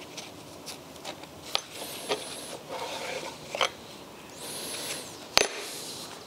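Gloved hands rubbing and scraping on a rusty starter motor's housing, with a few sharp metal clicks as a nut and long through-bolts are laid on the bench; the loudest click comes about five seconds in.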